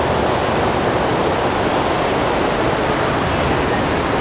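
Rocky mountain stream rushing over boulders: a loud, steady wash of white water.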